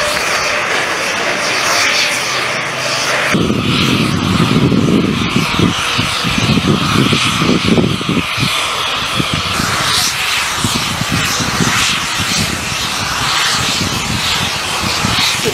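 Loud, steady roar of a large blaze burning close by, with no clear pitch; the sound changes abruptly about three seconds in to a rougher, fluttering roar.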